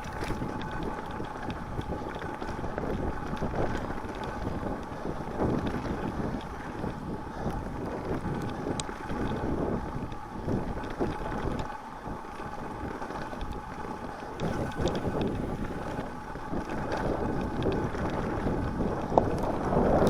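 Wind buffeting the microphone over the steady rolling and rattling of a mountain bike riding a dirt and snow trail.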